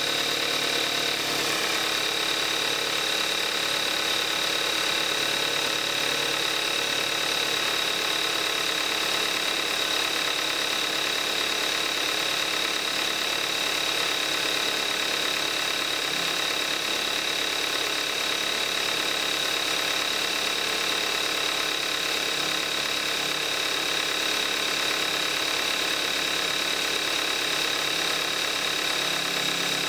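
2014 Kia Forte5's 2.0-litre gasoline direct-injection four-cylinder engine idling steadily shortly after a cold start, running on 5W-30 synthetic oil at 41,000 miles.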